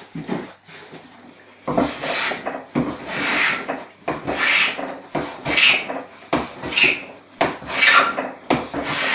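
Metal bench plane taking shavings off the end of a wooden shelf: a short knock at the start, then about seven rasping strokes, roughly one a second, thinning the shelf where it is too tight in its housing joint.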